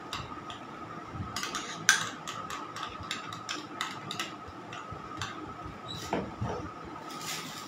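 Spoon clicking and scraping against a small bowl as red food colour is stirred into whipped cream: quick, irregular clicks over a faint steady whine.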